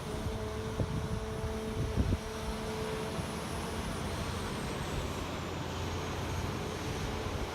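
Sany SY500H 50-tonne excavator running, its diesel engine and hydraulics going steadily. There are sharp clanks about one and two seconds in, and a steady whine that stops about three seconds in.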